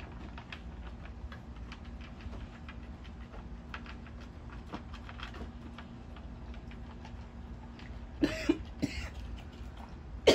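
A dog eating from a bowl, with many small, irregular clicks of chewing and food against the bowl. About eight seconds in come two louder, short cough-like sounds.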